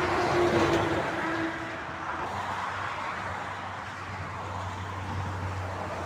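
Heavy trucks passing on a motorway: a loud rush of tyre and engine noise as a lorry goes by close, with a faint tone that falls in pitch over the first two seconds, then the low steady drone of another truck's diesel engine building toward the end.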